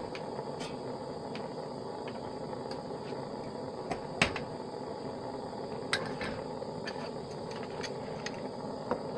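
Electric melting furnace running with a steady mechanical hum, with scattered sharp clicks and one louder knock about four seconds in.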